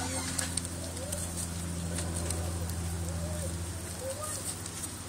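Baby rabbits chewing a kale leaf: small, crisp crunching clicks, scattered and irregular, over a steady low hum. Short, low warbling sounds come every second or so.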